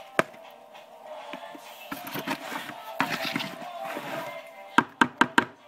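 Background music with steady tones, broken by sharp knocks: one near the start, one about halfway and a quick run of four near the end.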